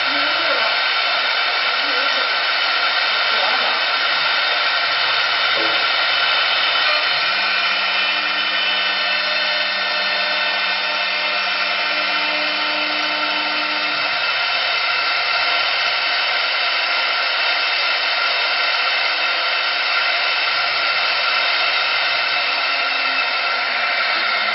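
Automatic CNC wood-turning lathe running steadily: a continuous high motor whine with a rushing noise over it, and a lower hum joining between about seven and fourteen seconds in.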